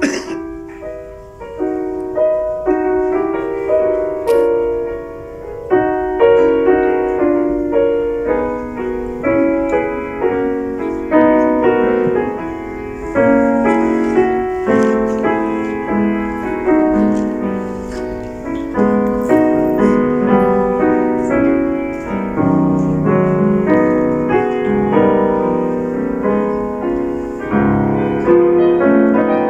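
Grand piano played solo in a continuous stream of quick, overlapping notes, mostly in the middle register.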